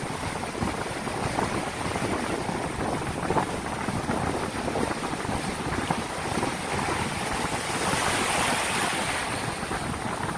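Ocean surf breaking and washing over the sand, a steady rush of water that swells louder about eight seconds in.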